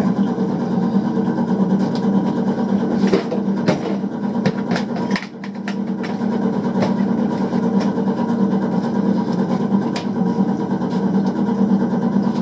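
Gas furnace's blower motor running with a steady hum, with a few sharp clicks and taps partway through. The blower motor is failing: it has been giving off a burning smell.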